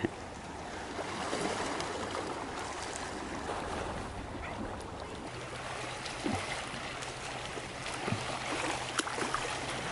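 Small sea waves lapping and washing over shoreline rocks, a steady wash of water.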